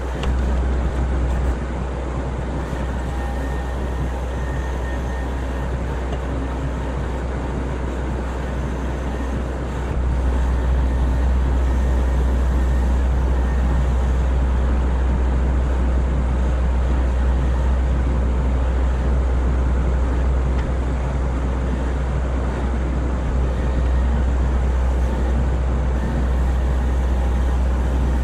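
Diesel engine of a knuckle-boom crane truck running steadily to power the crane's hydraulics, sped up along with the picture; it gets louder about ten seconds in.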